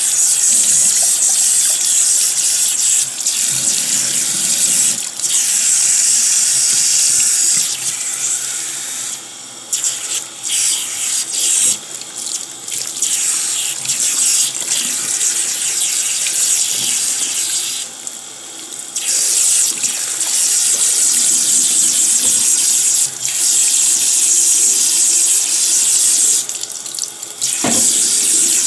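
Water running from a tap while hair is washed under it, a steady loud splashing hiss that dips briefly a few times as the flow is broken.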